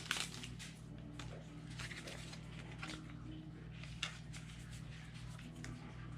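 Faint handling of Pokémon trading cards: scattered light rustles and small taps as a card is slid into a plastic card sleeve, with one sharper tick about four seconds in, over a low steady hum.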